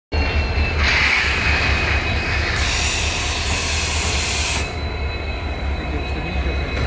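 WDG-4 diesel locomotive passing close by, its engine running with a deep rumble and a steady high whine over it. About two and a half seconds in there is a loud hiss that lasts about two seconds.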